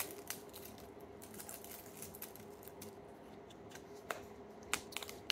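Light clicks and faint rustles of a small plastic slime tub, its lid and thin plastic film being handled, with a few sharper clicks near the start and again about four seconds in. A faint steady hum sits underneath.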